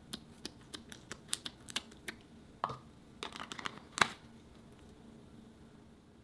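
Jelly cube slime being pressed and squished by hand, giving a run of sharp clicks and crackles that thicken into a cluster about three seconds in, with one loud snap just after four seconds, then it falls quiet.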